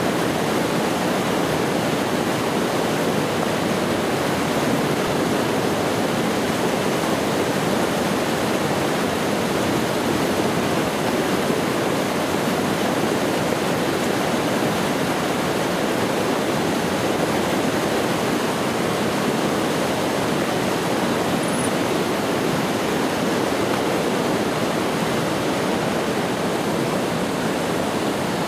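Floodwater rushing across a road: a steady, loud rush of fast-flowing water.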